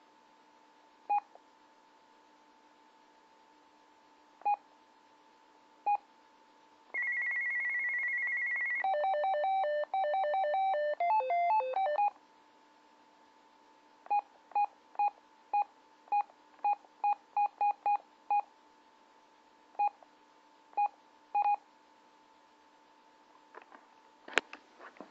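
Intek MT-5050 PMR handheld radio beeping as its menu buttons are pressed. About 7 s in it plays its three call tones in turn: a fast warbling trill, then two short melodic tone sequences. A run of quick key beeps follows, and a sharp click comes near the end.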